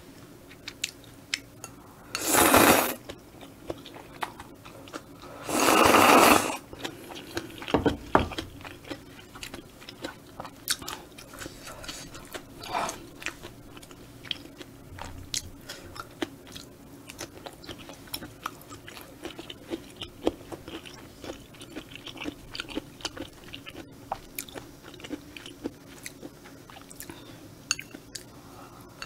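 Close-miked eating of spicy stir-fried squid and thick udon noodles: two loud noodle slurps, about two and six seconds in, then steady chewing with many small wet clicks and smacks.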